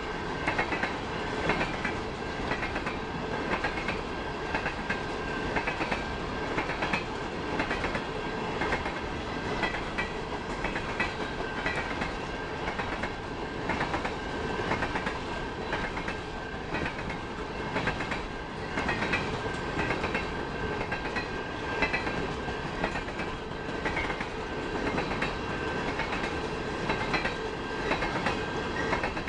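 Railroad cars rolling steadily past, wheels clicking over the rail joints in repeated clusters, with a steady thin high whine throughout.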